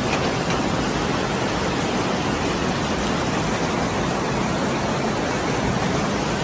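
Fast, muddy floodwater rushing through a street in a steady, unbroken rush of noise.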